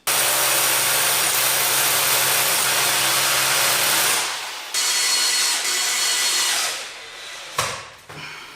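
Power drill running in two bursts, a long one of about four seconds and then a shorter one that winds down, drilling at a marked spot on the wall.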